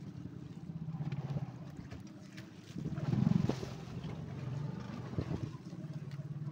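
A fishing boat's engine running steadily at sea, a low pulsing hum that swells briefly about halfway through.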